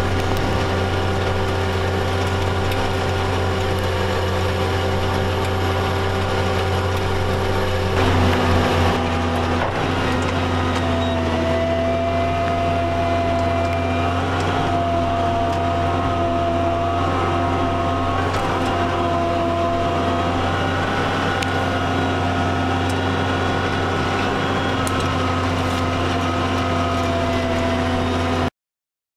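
Claas Challenger 55 tracked tractor running under load, heard from inside the cab: a steady low engine drone with higher whining tones that shift pitch about a third of the way in and then waver slightly. It cuts off suddenly near the end.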